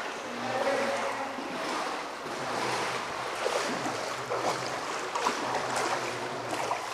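Water lapping and splashing around a paddled boat, with scattered small splashes and knocks from the paddling.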